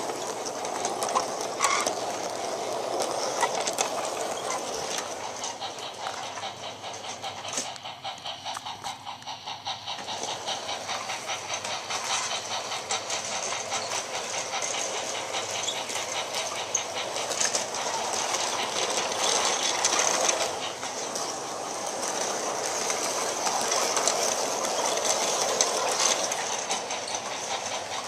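Bachmann large-scale Thomas the Tank Engine model train, with its Annie and Clarabel coaches, running on its track: a steady mechanical rattle with fine rapid clicking from the wheels on the rails. It grows louder and fainter as the train comes close and moves away round the loop.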